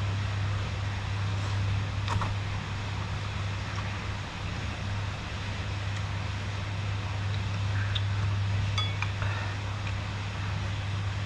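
Steady hiss of heavy rain with a low steady hum underneath, and a few light clinks of a metal fork and spoon against a glass bowl.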